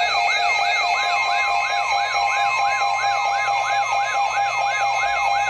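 Electronic warning siren alert: a tone rising and falling about three times a second, over steady held tones, sounding as the alert for a tornado warning.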